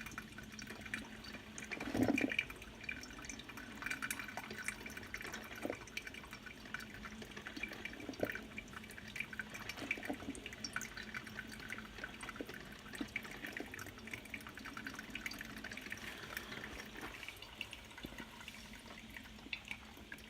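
Drip coffee maker brewing: hot water dripping, with many small irregular ticks and a brief louder burst about two seconds in.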